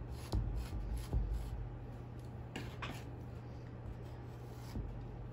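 Metal palette knife pulling acrylic paint across a stretched canvas: a few soft scrapes, two of them brighter about halfway through, over a low steady hum.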